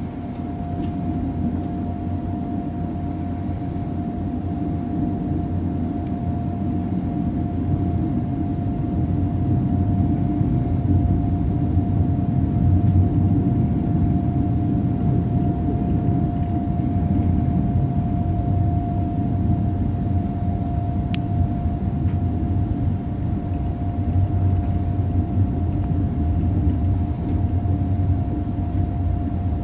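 ICE 3 high-speed electric train running over a steel bridge, heard from inside the front passenger compartment: a continuous low rumble of wheels on rail with a steady high-pitched hum over it, growing a little louder over the first ten seconds or so.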